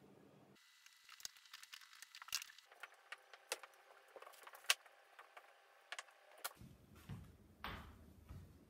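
Ballet pointe shoes clicking and tapping on a wooden floor as the dancer steps about, a scatter of light, irregular taps with a sharper one just before the middle.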